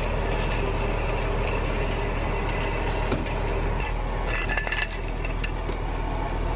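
Metal fire-hose couplings clinking and ticking as a flat hose is handled, a cluster of sharp clinks about four to five seconds in, over a steady low hum.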